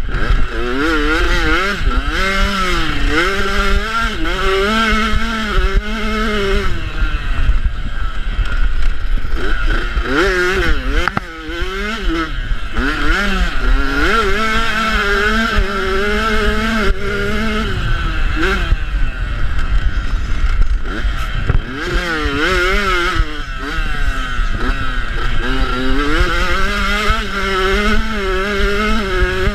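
250 motocross bike engine at racing speed, its revs climbing and dropping again and again with the throttle and gear changes, briefly easing off about eleven seconds in. Wind rumble on the microphone runs underneath.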